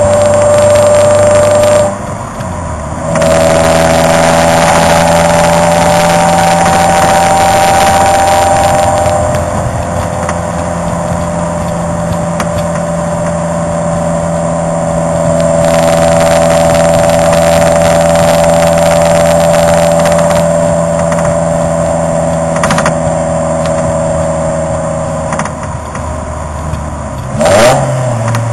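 Toyota AW11 MR2's four-cylinder engine, breathing through a TRD header and R6 titanium muffler, running under way with a steady exhaust note whose pitch drifts slowly with speed. The note drops away briefly about two seconds in, and near the end a short, sharp rise in revs stands out as the loudest moment.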